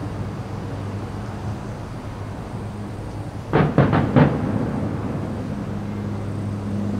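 Aerial firework shells bursting: a low rumble, then about four sharp bangs in quick succession a little past halfway, over a low steady hum.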